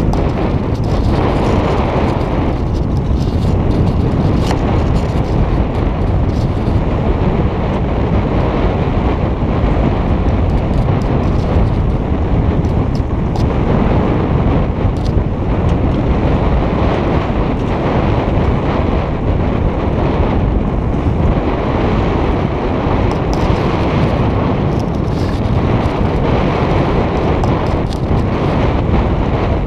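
Wind buffeting a GoPro camera's microphone hoisted to the top of a sailboat's mast, a loud, steady low rumble with occasional faint ticks.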